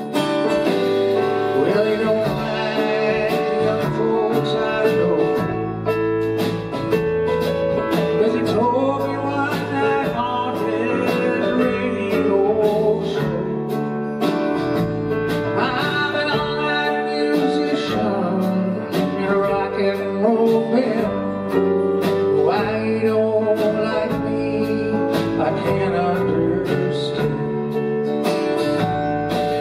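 Live country-rock band playing: acoustic guitar, electric bass, drums and keyboard, with male singing.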